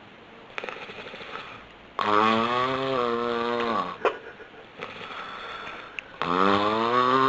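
A person snoring: two long, drawn-out snores about four seconds apart, each dropping in pitch as it ends, with quieter breathy exhales between.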